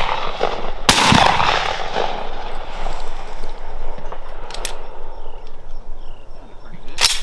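Shotgun blasts at doves: one loud shot about a second in, its report rolling away slowly, a fainter crack about halfway, and another loud shot near the end.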